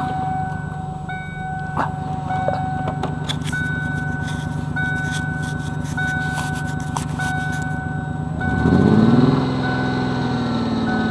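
Car engine running with one spark plug removed, that cylinder working as a compressor to pump air through a hose into a tyre. It idles steadily, then about 8.5 s in is revved up and held at higher revs to pump faster, while a dashboard warning chime beeps repeatedly.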